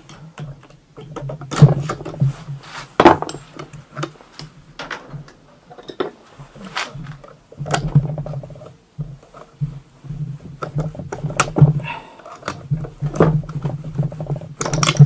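Irregular metal clicks and taps of pliers and small parts on a two-stroke moped engine's piston and crankcase as the piston is worked off the connecting rod. A steady low hum runs underneath.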